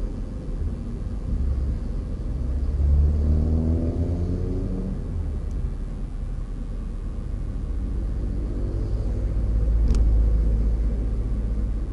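Motor vehicle driving on a road: a steady low engine and road rumble. About three seconds in, the engine pitch rises and then falls away, and a single sharp click sounds near the end.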